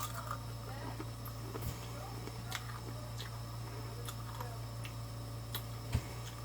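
Close-miked chewing of crispy fried chicken: scattered, irregular crunches and mouth clicks over a steady low hum.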